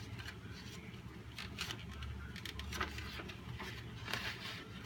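Paper rustling and crinkling as letters and envelopes are handled, a string of short, irregular crackles over a low steady hum.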